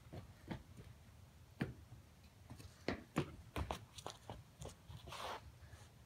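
Faint, irregular taps and knocks of a child's footsteps as he runs off a concrete porch and crouches down, with a brief soft rustle about five seconds in.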